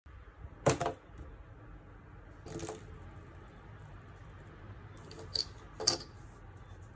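Small plastic figure parts being handled and set down on a ribbed plastic mat: a few light clicks and knocks, the loudest about two-thirds of a second in and again near the end.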